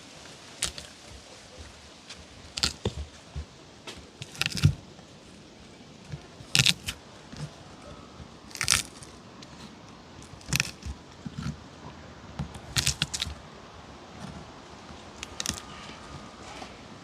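Knife chopping and crushing garlic on a board: irregular sharp knocks, some coming in quick clusters of two or three.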